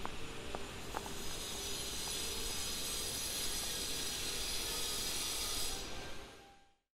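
A steady hissing noise with a few faint clicks, fading out near the end.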